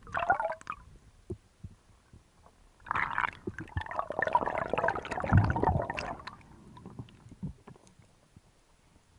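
Underwater bubbling and gurgling in two stretches: a short burst at the start, then a longer, denser spell from about three to six seconds in with a few low thuds.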